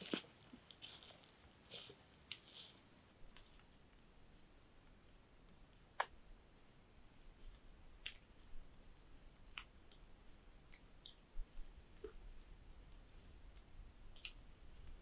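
Faint crunching and rustling of boots on dry leaf litter in the first few seconds, then scattered faint clicks and small twig snaps underfoot.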